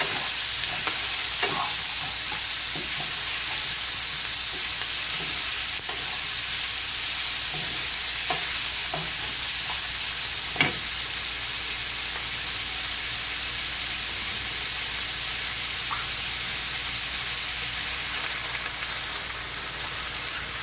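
Bamboo shoots and chicken sizzling in a frying pan, with a wooden spatula scraping and knocking against the pan as it is stirred during the first half, one knock sharper than the rest about ten seconds in. After that the sizzle goes on steadily.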